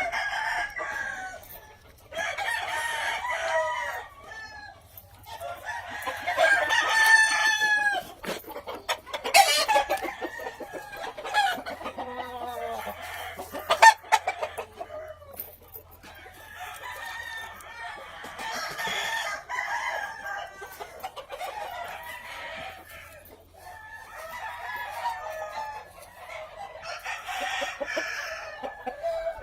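Several gamefowl roosters crowing one after another, each crow lasting about two to three seconds, with hens clucking between the crows.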